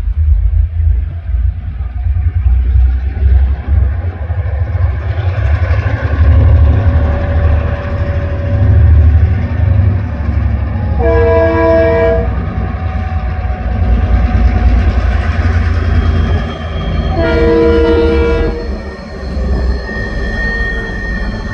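Four TasRail DQ-class diesel locomotives hauling an empty ore train, their engines giving a deep rumble throughout. The multi-tone horn sounds twice, about 11 seconds in for a second and again about 17 seconds in for a little longer, warning of the level crossing. A high steady wheel squeal joins near the end.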